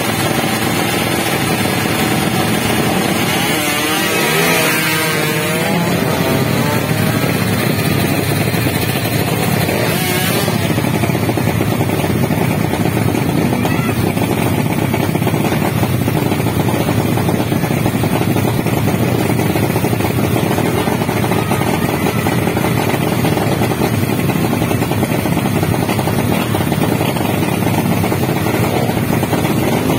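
Drag bike motorcycle engines running loud and steady, with an engine revving up and down a few seconds in.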